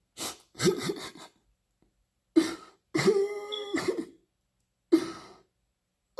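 A person's voice in a series of short coughs and breathy gasps, about eight bursts with gaps between them, one held a little longer with some pitch about halfway through.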